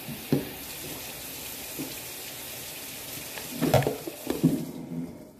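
Refrigerator door water dispenser running into a container, a steady hiss of pouring water that cuts off suddenly near the end, with a few short knocks just before it stops.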